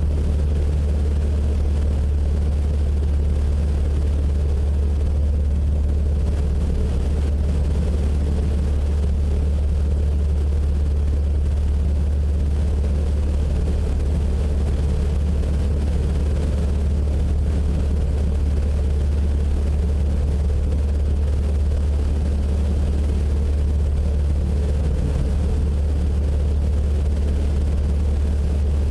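Light high-wing airplane's piston engine and propeller droning steadily during climb-out after takeoff. It is heard from outside the fuselage beneath the wing, with rushing airflow over the microphone.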